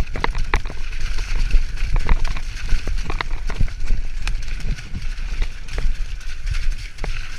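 Mountain bike riding fast down a rough, muddy trail. Wind rumbles on the microphone, and the tyres and frame clatter with irregular sharp knocks over the bumps.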